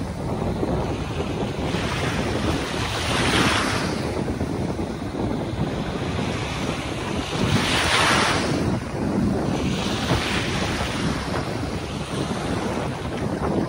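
Small sea waves washing in the shallows, the hiss swelling every few seconds, under heavy wind rumbling on the microphone.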